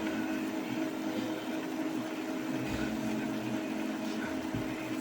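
Epson L3150 inkjet printer's internal motor running steadily with an even hum, starting and stopping abruptly.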